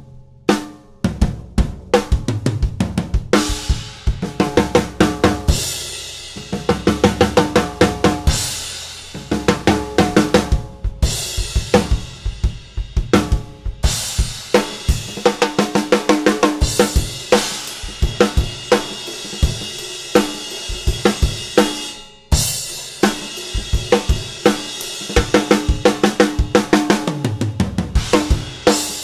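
Drum kit played with a Gretsch Black Copper snare: grooves and fast fills of snare hits over bass drum and hi-hat, with cymbal crashes several times.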